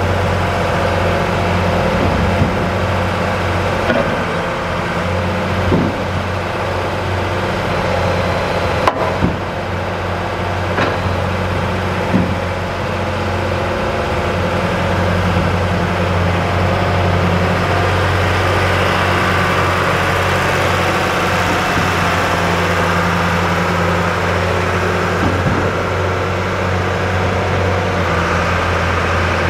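John Deere 6059T six-cylinder turbo diesel of a Lemco 15000 log loader running steadily while the boom and grapple are worked, with a few short, sharp clunks scattered through.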